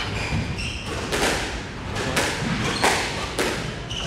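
Squash rally: the ball is struck by rackets and smacks off the court walls and floor several times, each hit a sharp thwack that echoes in the enclosed court.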